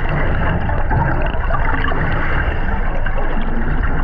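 Steady sloshing and gurgling of moving water.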